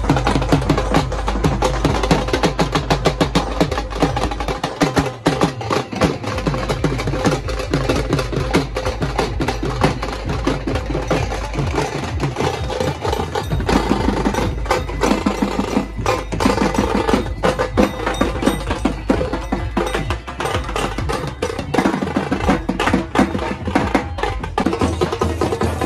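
Dhol drums beaten with sticks in a fast, continuous rhythm, loud street drumming.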